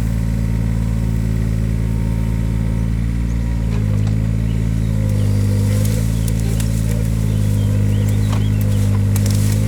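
Takeuchi TB016 mini excavator's diesel engine running steadily at working revs, its pitch dipping slightly a few times, with a few light knocks in the second half.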